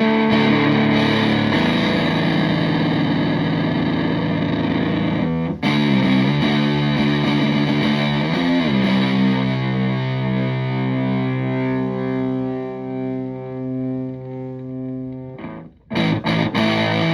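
Stratocaster played through a Tone Bender MKII fuzz pedal into a Twin Reverb–style amp. A fuzzed chord is held, then a second chord comes in with bent notes and sustains, slowly fading. After a brief break near the end comes fast, choppy strumming.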